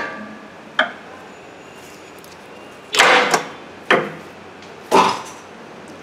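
Pry bar working a rust-seized starter motor loose from a Ford Crown Victoria's transmission: a light click about a second in, then three sharp metal knocks and scrapes about a second apart, the first the longest.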